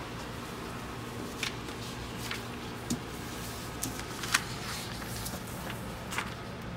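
Sheets of paper being handled and leafed through, with a few short crisp rustles and taps over a steady low room hum.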